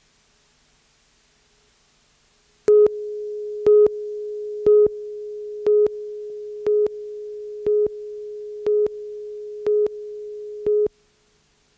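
Countdown leader tone on a television news tape: a steady pitched tone with a louder beep on it once a second, nine beeps in all. It starts about three seconds in, after near silence, and cuts off near the end.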